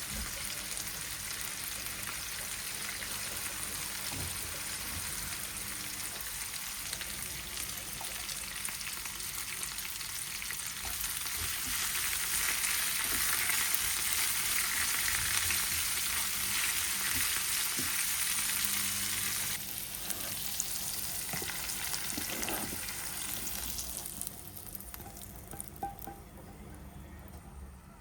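Food sizzling as it fries in a hot pan. The sizzle grows louder about ten seconds in, drops back suddenly around twenty seconds, then dies down near the end, with a few light knocks of a utensil against the pan.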